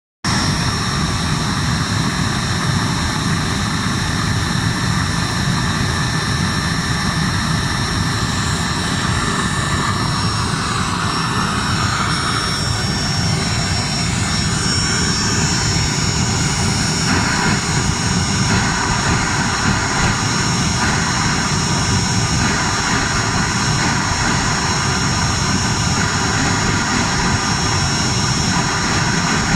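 Disassembled Webasto diesel auxiliary heater running with its burner open: a steady rushing of combustion and blower air, with a thin, steady high whine.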